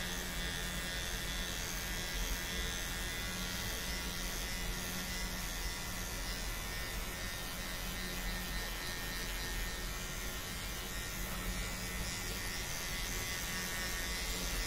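Electric hair clipper with no guard attached, buzzing steadily as it trims beard hair under the chin close to the skin.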